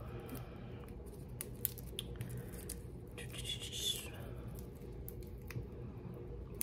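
Foil wrapper of a bouillon cube being peeled open by hand: faint crinkling with scattered small ticks and a brief rustle about three and a half seconds in.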